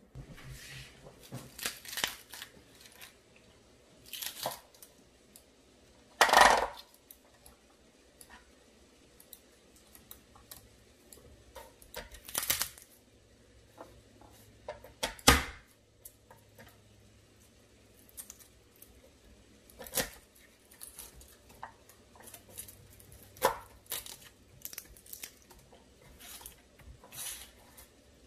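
Kitchen knife work on a wooden cutting board: irregular sharp knocks and scrapes a few seconds apart, with tearing and rustling as vegetables and garlic are handled. The loudest knocks come about six seconds in and again about fifteen seconds in.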